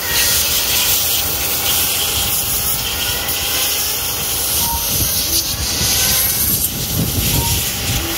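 Radio-controlled cars running laps on an asphalt track: a steady hiss of motors and tyres, with faint rising whines as cars accelerate, over a low rumble.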